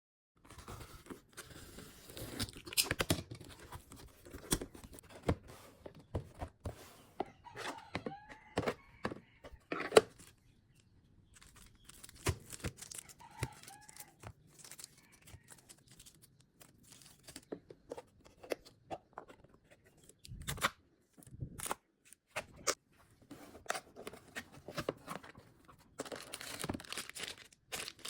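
A delivery parcel being unpacked by hand: packaging torn open and wrapping crinkled and rustled, with irregular sharp clicks and taps and a short pause about ten seconds in.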